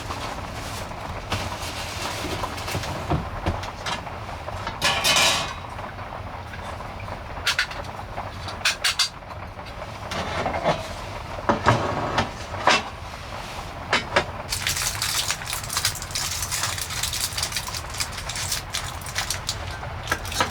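Kei truck on the move: a steady low road-and-engine rumble with scattered knocks and rattles, and a thicker hiss in the second half, as of a wet road or rain.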